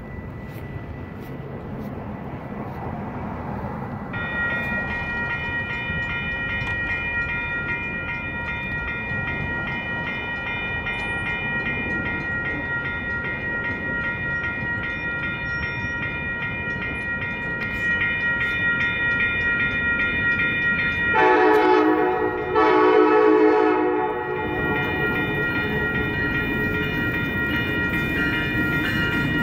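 Amtrak Hiawatha train led by a Siemens Charger SC-44 locomotive approaching with a low rumble, while a bell rings steadily from about four seconds in. About 21 seconds in, the horn sounds two loud blasts, a short one then a longer one.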